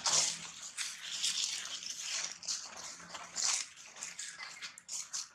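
Plastic bag crinkling and dry leaves rustling in irregular crackles as a long-tailed macaque rummages in a bag of crispy snacks.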